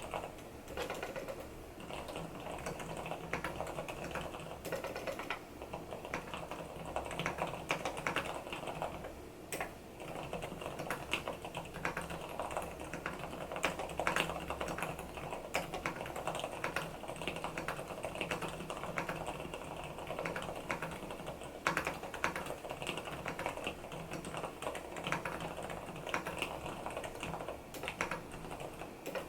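Continuous typing on an mStone Groove T SF mechanical keyboard with silicone dampening, its fully lubricated Gateron silent brown switches producing a steady stream of keystrokes.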